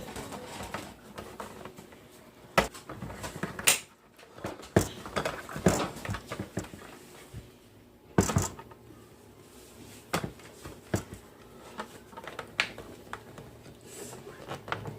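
Irregular clicks, knocks and scrapes of hands working on a touchless trash can's battery compartment, fitting adaptor wires into a cut groove and pressing the cover shut.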